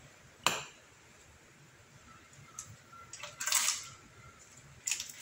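Hard conch shells knocking on a tiled floor and against each other as they are taken from a mesh net bag: one sharp clack about half a second in, a brief rustling scrape a little past the middle, and another click near the end.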